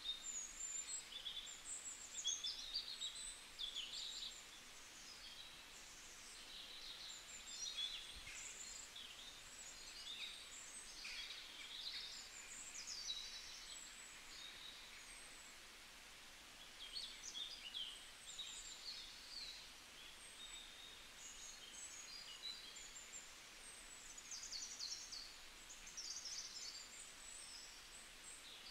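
Small birds chirping faintly, a continual stream of short, irregular high calls over a steady background hiss.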